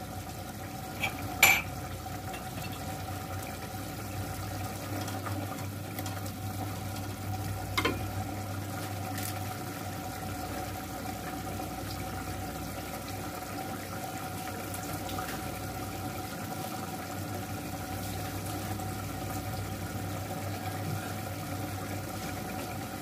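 Meat and potato curry simmering in an aluminium pot over a gas flame, under a steady low hum. There are light knocks about a second and a half in and again around eight seconds.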